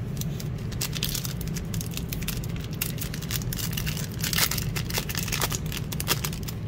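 Foil trading-card pack crinkling in the hands and being torn open, with irregular crackles throughout. A steady low hum runs underneath.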